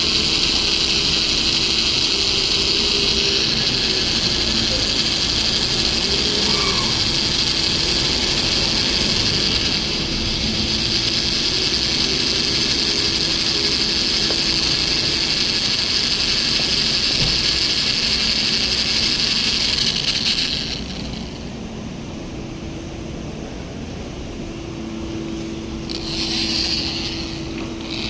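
Power drill boring a hole through the steel of a car's shifter assembly, the motor running steadily with a high hiss of the bit cutting metal. It stops about 21 seconds in, then runs again briefly near the end.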